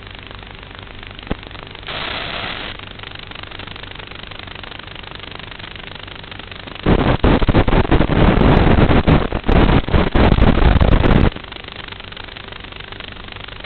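FPV aircraft's onboard audio: a steady motor hum. For about four seconds in the middle it is drowned by loud, harsh, crackling noise that breaks in and out.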